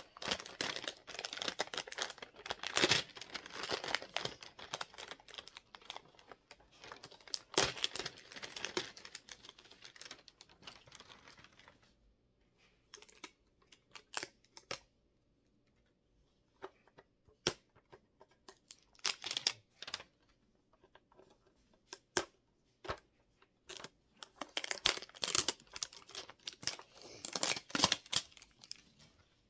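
Paper wrapping being torn and crumpled off a small toy box by hand. Dense tearing and crinkling for the first twelve seconds, then scattered crinkles and small clicks, then a burst of dense tearing again near the end.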